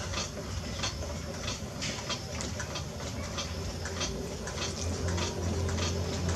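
Potter's wheel spinning with a steady low hum, under irregular wet clicks and squelches from slip-covered hands working a tall cone of wet clay. The hum grows a little louder about five seconds in.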